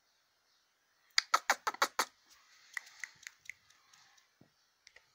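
A quick run of about six sharp taps or clicks, then scattered fainter clicks.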